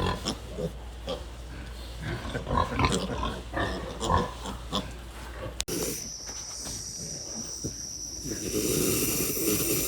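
Sleeping pigs grunting and snoring: a run of short grunts and snorts, then, after an abrupt break about halfway through, a longer raspy snoring breath that swells near the end.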